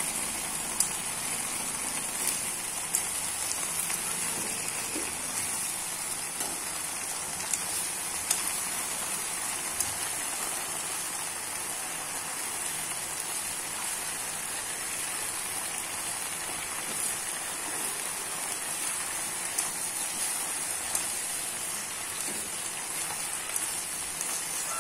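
Genjer (yellow velvetleaf) stalks and leaves sizzling steadily in hot oil in a wok over high heat, with a few light clicks of chopsticks against the pan as the greens are stirred.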